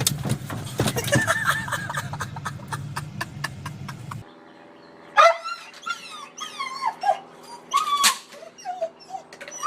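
Dog whining and yipping in short bouts of high, rising and falling cries, starting about five seconds in. Before that, a low steady hum with a rapid run of clicks cuts off abruptly.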